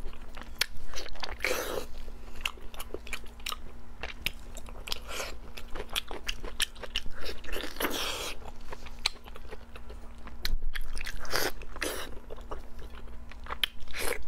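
Close-miked eating of a chunk of fatty pork belly: bites and wet chewing, a quick run of many short sharp mouth and teeth clicks with a few longer smacking smears.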